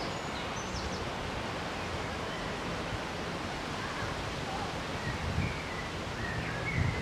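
Steady outdoor hiss of pond-side ambience, with a few faint, short, high bird chirps now and then.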